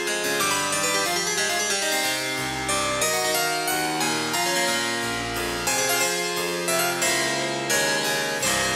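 Music: a busy melody of quick, bright keyboard notes over low bass notes.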